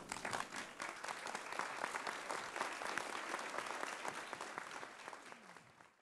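Audience applauding: many hands clapping together, dying away near the end.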